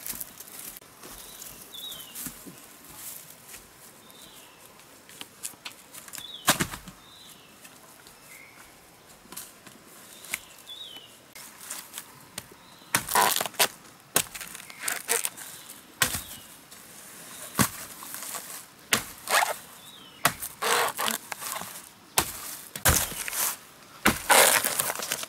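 Machete chopping into bamboo: sharp strokes, roughly one a second, through the second half. Before that it is mostly quiet, with short high chirps now and then and one sharp knock.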